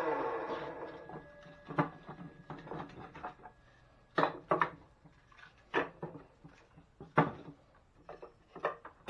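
Music fading out, then pieces of firewood knocking together in sharp, scattered clacks, some in quick pairs.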